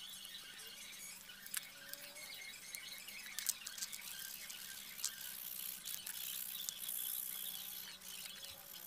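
Small hand knife cutting and scraping wood, with scattered light clicks and scratches as it works the piece.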